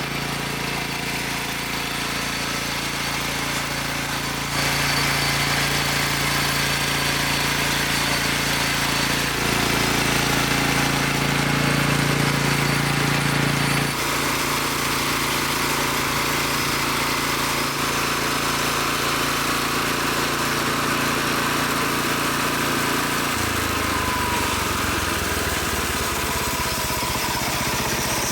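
The engine of a homemade band sawmill running steadily. It gets louder a few seconds in, and its note steps lower about two-thirds of the way through as the speed or load changes.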